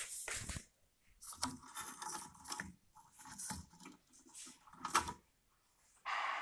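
Hands handling the dusty metal chassis and cooling fan of a power amplifier: irregular clicks, scrapes and rattles, with a short rushing hiss near the end.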